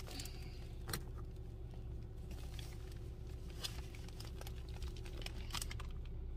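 Steady low hum inside a parked or idling car, with a few faint clicks and rustles of things being handled.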